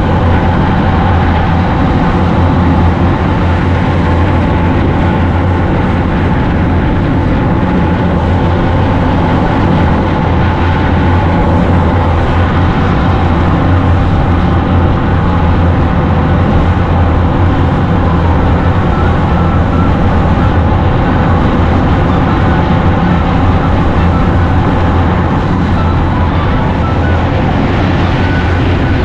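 Tour boat's engine running steadily under way, a constant loud drone with a strong low hum.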